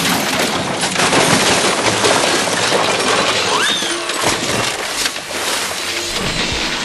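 Cartoon crash sound effect: a long, dense clatter of breaking and shattering with many overlapping impacts, starting suddenly, and a short rising glide about three and a half seconds in.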